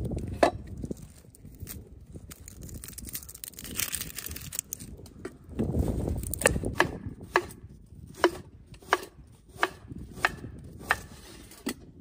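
Chinese cleaver slicing an onion on a wooden cutting board: a single knock early, then a steady run of about nine sharp knocks of the blade on the board, roughly two-thirds of a second apart, through the second half.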